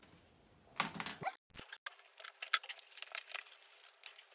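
A small cardboard box and its plastic packaging being handled and opened, with a burst of rustling about a second in, then a quick run of light clicks and rattles.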